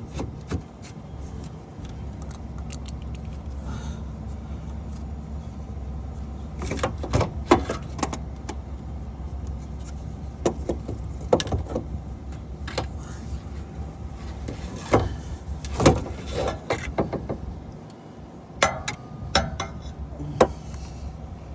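Scattered metallic clinks, knocks and scrapes as a starter motor and hand tools are worked into place under a car, with a few louder knocks near the middle and a cluster near the end, over a steady low hum.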